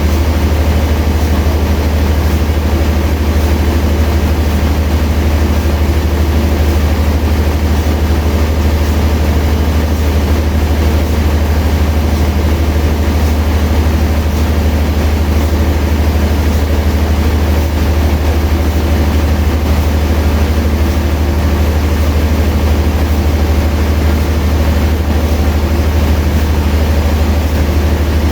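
Sawmill machinery running with a steady, loud low drone that does not change.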